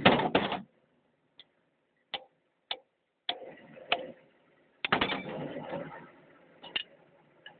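Steel wrenches clinking and ratcheting on the cylinder head bolts of a diesel engine: a loud metal clatter at the start, then a string of separate sharp clicks, another clattering stretch about five seconds in, and a few more clicks near the end.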